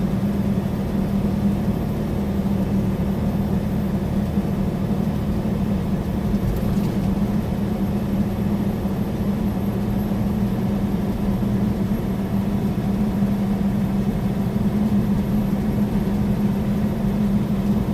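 Loaded semi truck cruising at highway speed, heard from inside the cab: steady diesel engine drone and road noise, with an unchanging low hum.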